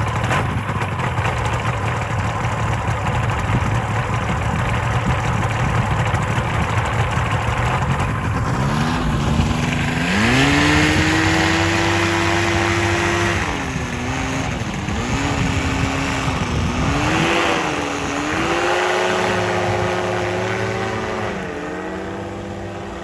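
Two-seat paramotor's propeller engine running roughly at low throttle, then opened up about nine seconds in to a high steady pitch. It is throttled down and back up a few times.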